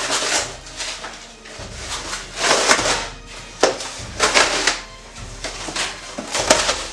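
Background music with a bass line that changes note about every second, over irregular bursts of rustling as the packaging of an ultrasonic cleaner is handled.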